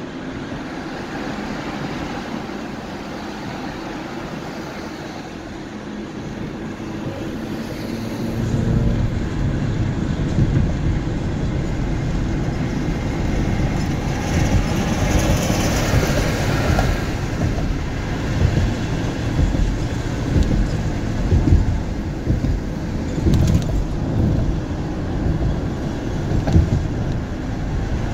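Road noise of a car on the move, a steady rumble and hiss that turns heavier and louder about eight seconds in, with a rising and falling hiss around the middle.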